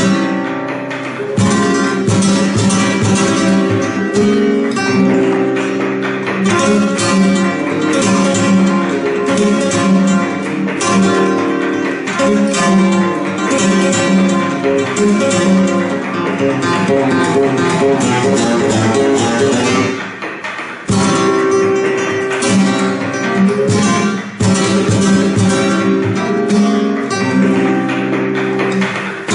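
Flamenco played on an acoustic guitar: fast runs of plucked notes mixed with strummed chords, with two short breaks, about 21 and 24 seconds in.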